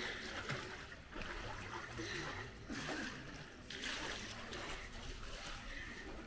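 Running water splashing and trickling, an uneven wash that rises and falls every second or so.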